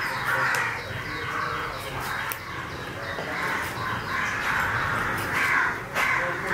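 Birds calling repeatedly, with a couple of short clicks.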